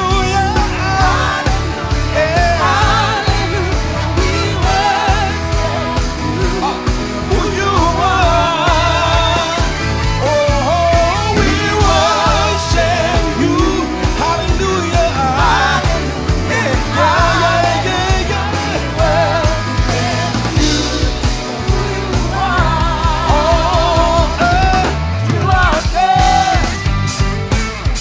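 Live gospel band performing: sung melody with vibrato over drums, bass and band.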